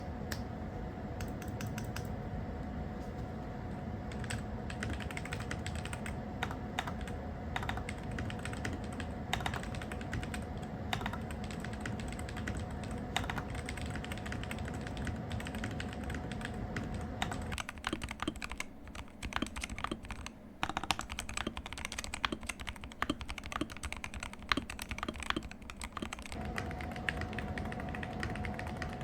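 Typing sound test on a MadLions MAD60HE hall effect keyboard with magnetic switches: a fast, continuous run of keystroke clicks. The background changes about two thirds of the way through, where a faint steady hum drops out and comes back near the end.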